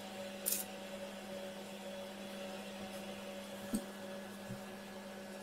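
Faint handling of fabric: a short rustle of cloth about half a second in and a light click near four seconds, as a binding strip is pinned to a blouse neckline, over a steady background hum.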